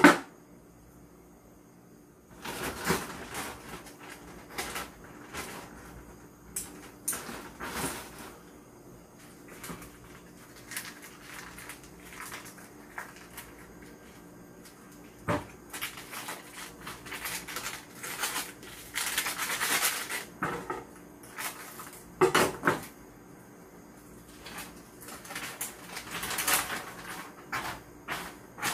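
Plastic food packets rustling and crinkling in scattered bursts as they are handled, with a few sharp knocks and clicks of things set down on a table, one of them a pair of scissors put down at the start.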